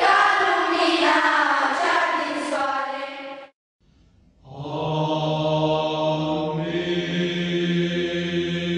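Background music of church chant: voices sing a moving melody that stops about three and a half seconds in, and after a short silence a second chant begins over a steady held low drone note.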